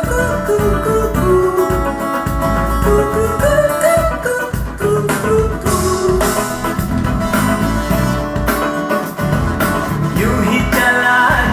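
Music with guitar and a strong bass line playing steadily.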